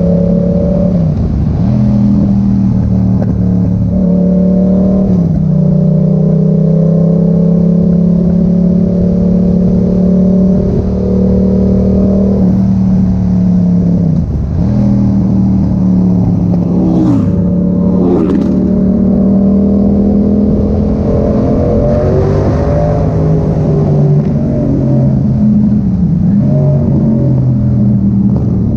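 Yamaha MT-07's 689 cc parallel-twin engine running loud through an Arrow exhaust with the dB killer removed. The revs hold fairly steady, with the pitch dipping and climbing back several times.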